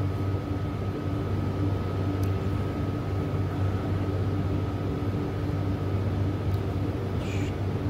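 Steady machine hum with a low drone and a faint, thin high whine held at one pitch throughout.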